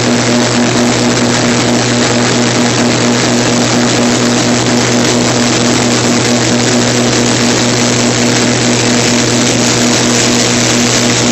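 Warren Mega Auger on a feed truck running under load as it unloads shelled corn, a loud, steady mechanical sound with a constant hum. A higher-pitched hum grows stronger near the end as the hopper empties.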